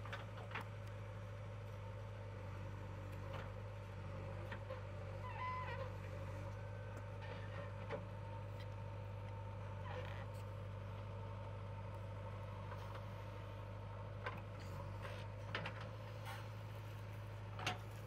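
JCB 3DX backhoe loader's diesel engine running steadily while the backhoe arm digs soil, with a few sharp knocks from the bucket and arm, the loudest near the end.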